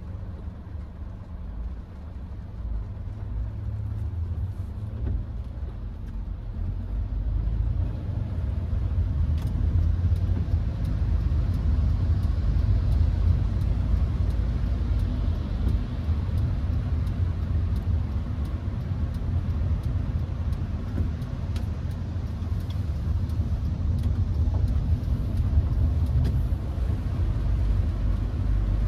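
Inside the cabin of a Hyundai HB20 1.6 automatic driving in the rain: a low engine and road rumble that grows louder over the first several seconds as the car gathers speed, then holds steady, with faint scattered taps of rain.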